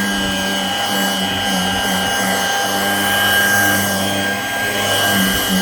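Dirt Devil hand vacuum running steadily with a high whine, its nozzle rubbing over upholstery so the lower hum wavers as it is pushed along.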